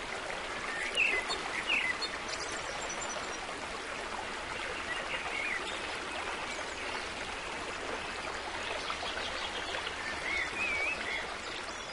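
Steady rush of flowing water, like a stream, with a few short bird chirps scattered through it.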